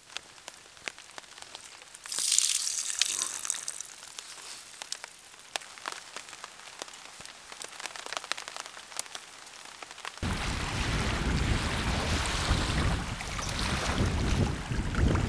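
Raindrops ticking and pattering in the forest, with a louder hiss lasting about two seconds near the start. About ten seconds in this cuts to wind buffeting the microphone and small waves washing on a rocky shore.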